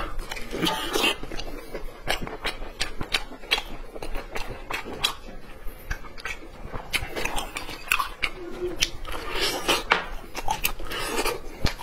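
Close-miked mouth sounds of eating braised lamb shank: wet smacking and chewing with many short sharp clicks as meat is bitten and pulled off the bone, and a few longer sucking sounds.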